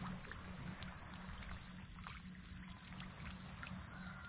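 Red tilapia splashing faintly at the surface of a pond as they take feed pellets, small scattered splashes and trickling over a low rumble and a steady high whine.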